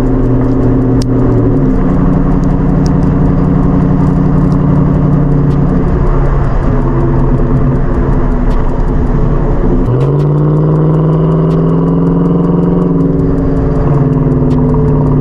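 2021 Nissan Titan's 5.6-litre V8 heard at the tailpipe through Flowmaster Super 10 mufflers and an X-pipe while driving. A steady exhaust note whose pitch jumps up about a second and a half in and again about ten seconds in, then holds.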